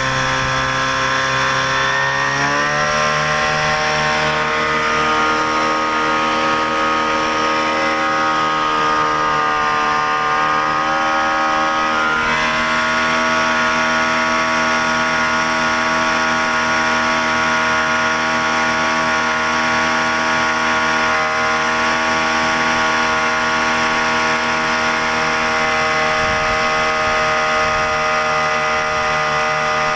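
Yamaha 8 hp outboard motor pushing an 8-metre boat along, running steadily. Its revs climb about two seconds in and again around ten seconds in, then hold steady.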